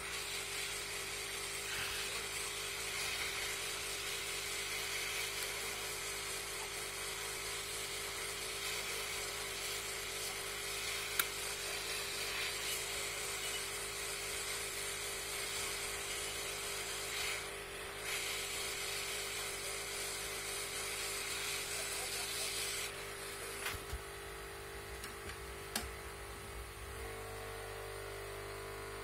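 Hot-air rework gun blowing a steady hiss of hot air onto a motherboard VRM MOSFET to desolder it. The MOSFET has tested shorted on all three pins. The airflow dips briefly about two-thirds of the way through and stops about six seconds before the end.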